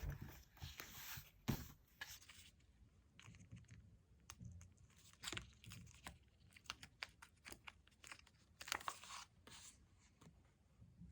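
Stickers being peeled off their backing sheets and pressed onto paper: quiet short peeling rasps and paper rustles among many light taps.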